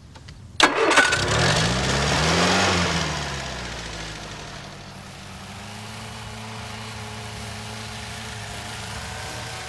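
An engine starts abruptly about half a second in, revs up and falls back over the next two seconds, then settles into a steady idle.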